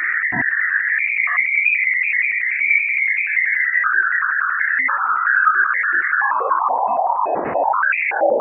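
Radio emissions recorded by the Juno spacecraft's Waves instrument at Ganymede, shifted into the audio range: eerie warbling whistles and beeps in a wavering band that slides down in pitch near the end.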